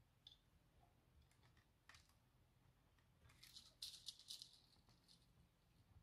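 Near silence, with faint light clicks and rustles for a second or so around the middle as fine jewellery wire and beads are handled.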